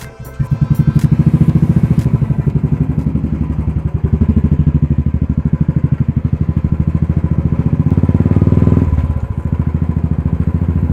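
Royal Enfield Classic 350's single-cylinder engine being ridden through an aftermarket Dolphin silencer, a fast, even train of deep exhaust thumps; the thumping eases off a little about nine seconds in.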